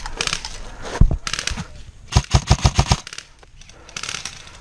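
Airsoft electric M4 rifle firing close by: a single shot about a second in, then a rapid burst of about seven shots a second later. Fainter rattles of airsoft fire come before and after.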